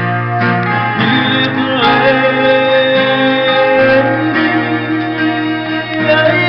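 A man singing while strumming a steel-string acoustic guitar, holding one long note from about a second in.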